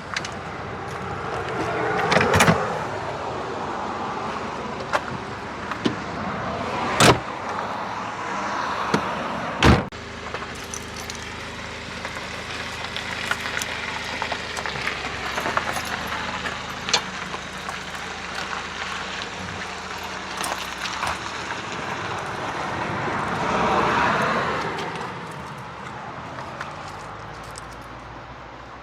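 Sharp knocks and clatter around a parked van, the loudest two about 7 and 10 seconds in, over a steady rush of outdoor noise that swells twice.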